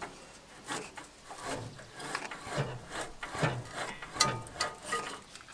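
Riding mower's engine being turned over by hand at the flywheel, in repeated rubbing, scraping strokes with dull thumps; the engine turns, so it is not seized.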